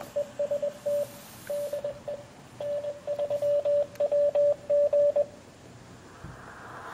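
Morse code (CW) from an amateur radio setup: a single steady tone of about 600 Hz keyed into dots and dashes, a message sent from an Elecraft KX3 transceiver. It stops about five seconds in, leaving faint hiss.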